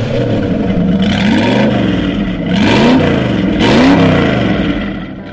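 A 5-litre Mustang V8 in a hot-rodded Ford Pop, revved in several throttle blips, each one rising and falling in pitch, fading out near the end.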